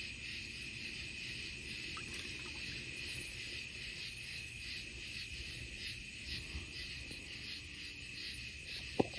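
A chorus of tree frogs calling steadily at night, a constant high trill with a faint regular pulse. A single sharp click near the end.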